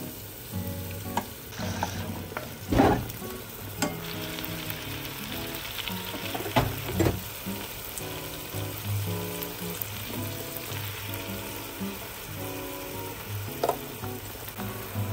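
Soy-sauce seasoning sizzling in a nonstick frying pan with minced garlic, oil and sliced green chilies, stirred with a wooden spoon, with a few sharp knocks along the way. Soft background music plays underneath.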